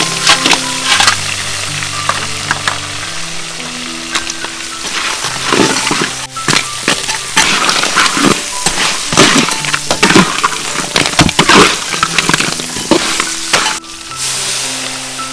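Blue crab stir-frying in a hot pan: steady sizzling with frequent clinks and scrapes of a utensil stirring against the pan. The sizzling drops away abruptly near the end.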